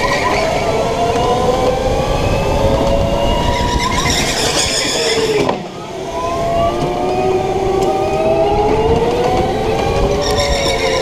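Electric go-kart at speed, heard on board: the motor's whine rises and falls with speed. It dips sharply about halfway through, then climbs again, over a steady rumble of wind and tyres.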